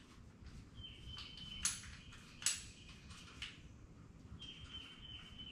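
Two sharp metallic clinks of hand tools working on an engine, about a second apart, over faint shop background. A thin steady high tone sounds for under a second near the start and again near the end.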